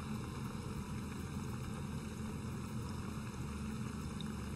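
Hollowed zucchini deep-frying in a pot of hot oil: a steady sizzle. The zucchini are being fried to about half-done, just starting to brown.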